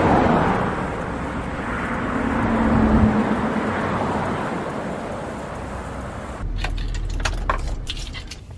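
Cars passing one after another on a road, tyre and engine noise swelling and fading with each, the first close by. About six and a half seconds in, this gives way to a quick run of sharp clicks and rattles.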